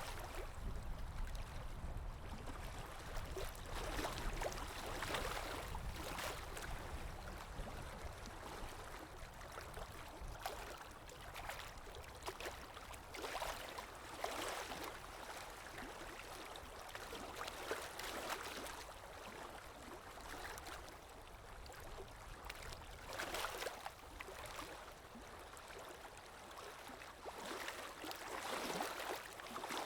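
Calm sea waves washing in, the hiss swelling and fading every few seconds.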